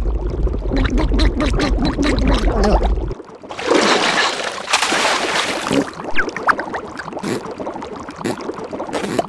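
Cartoon water sound effects: underwater bubbling over a low rumble for about three seconds, then a loud burst of splashing, then bubbling and gurgling again.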